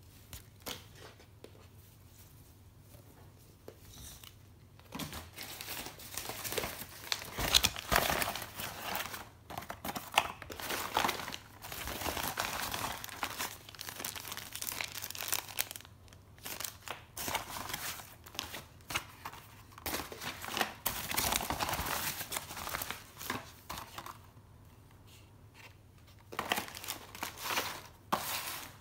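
Packaging crinkling and tearing as an item is unwrapped: irregular rustling that starts about five seconds in, pauses briefly near the end, then resumes.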